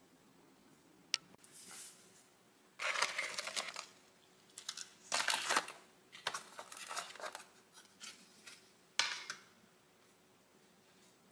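Rigid plastic food trays and a lid being handled and pulled apart: bursts of crinkling and scraping plastic, with a sharp click about a second in and another about nine seconds in.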